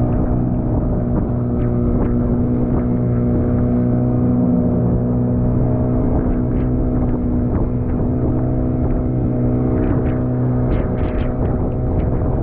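A small fishing boat's motor runs at a steady speed with a constant hum, while the hull splashes through choppy water. Sharper splashes and knocks against the hull come more often near the end.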